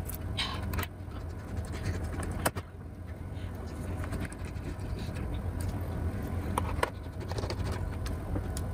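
Screws being driven back into a laptop's bottom panel with a screwdriver, giving scattered small clicks and taps over a steady low hum.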